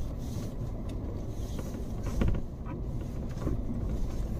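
Steady low rumble of a Mahindra Thar's engine and tyres, heard from inside the cab as it creeps down a snow-packed road, with a few short knocks and creaks from the vehicle going over the ruts. The loudest bump comes a little over two seconds in.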